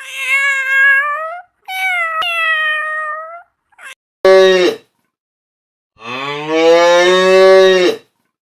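Farm animal calls: two drawn-out, high-pitched calls of about a second and a half each, then a short lower call, and near the end a long low call that rises in pitch.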